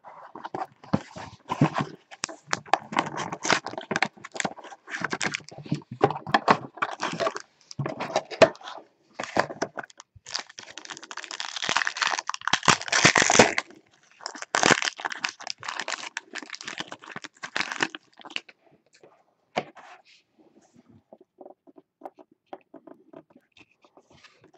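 Cardboard trading-card box being opened, then a foil pack wrapper crinkling and tearing as it is ripped open, loudest around the middle. After about 18 seconds it drops to faint rustling as the cards are handled.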